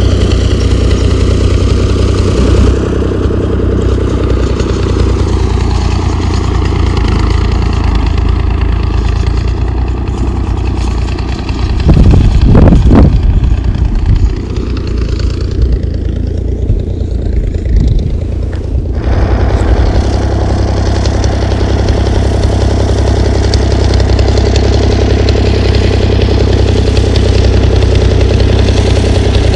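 A motor engine running steadily, with a louder stretch about twelve seconds in.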